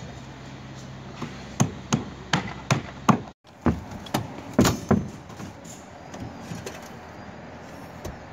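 Wooden roof boards knocked on in an irregular run of about a dozen sharp knocks between one and five seconds in, broken by a brief dropout about three and a half seconds in, then only faint ticks.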